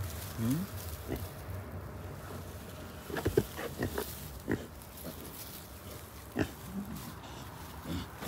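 Pigs grunting in short, separate grunts, a handful of times, the loudest cluster about three seconds in.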